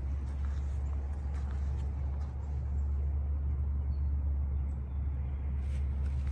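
A steady low rumble, with light rustling and a few faint snaps of dry twigs and brush now and then.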